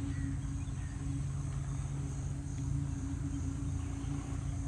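Steady outdoor drone: a constant low hum with a high insect buzz over it.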